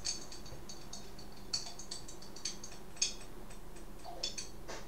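Faint room tone, a steady low hiss and hum, with a scattered handful of small, sharp clicks and ticks at uneven intervals.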